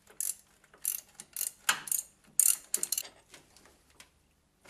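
Socket ratchet clicking in short bursts of strokes as a freed bolt holding the gearbox to the engine block is wound out. The clicking stops about three seconds in.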